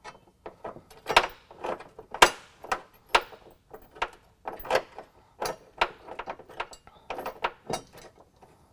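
Small metal hardware clinking and clicking irregularly, several knocks a second, as a washer, cut washer and nut are fitted by hand onto a bolt at a steel nerf bar bracket.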